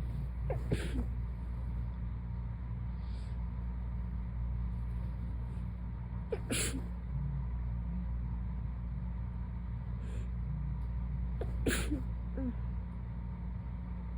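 A person sneezing three times, roughly five seconds apart, each sneeze a short sudden blast after a brief drawn-in breath, drowsy sneezes just after waking from a nap. A steady low hum runs underneath.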